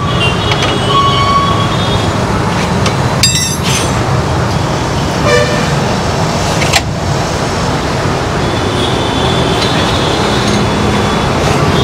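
Steady street traffic noise with vehicle horns tooting now and then. There are a couple of sharp clicks about three and seven seconds in.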